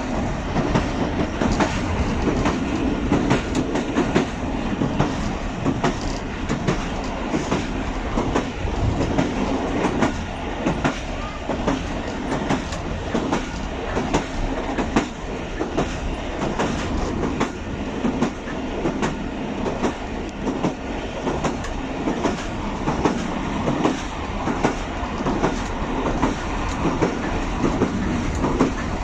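Passenger train coaches running along the track, heard from aboard: a steady rumble with a continual clickety-clack of wheels over rail joints.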